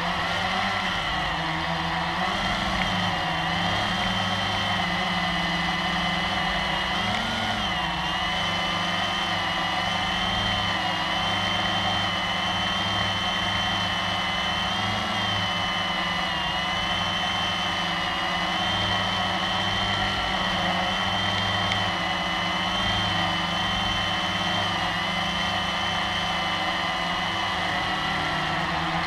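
Blade 350QX quadcopter's electric motors and propellers whirring steadily, heard close from the camera mounted on the drone itself, the pitch shifting slightly now and then as the throttle adjusts.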